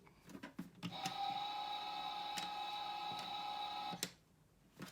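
Toy dishwasher's electronic drying sound effect playing from its small speaker: a steady, unchanging electronic tone rich in overtones that starts about a second in after a few light clicks and cuts off suddenly about a second before the end.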